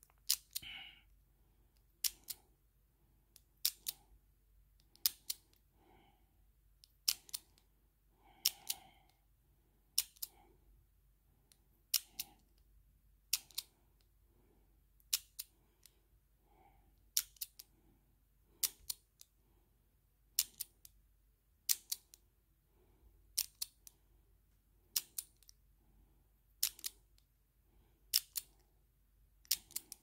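Steel shackle of a dial combination padlock tugged against its locked latch: a sharp metallic double click about every one and a half seconds, with faint dial-turning between. The lock stays shut each time as combinations are tried one after another.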